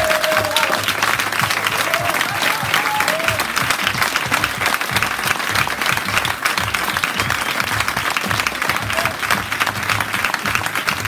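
Audience applauding steadily, with many hands clapping, over background music.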